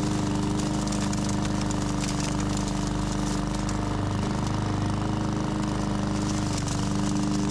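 PowerSmart 144cc OHV push lawn mower engine running at a steady governed speed while mowing in side-discharge mode, with an even, unwavering pitch.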